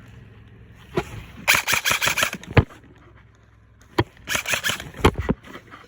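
Airsoft gun firing two short full-auto bursts of about ten shots a second, with a few single sharp knocks in between.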